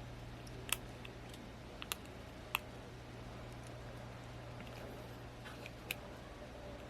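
Small sharp clicks and taps of a repair tool against a smartphone's frame while prying out its loudspeaker, five or so scattered clicks over a steady low hum.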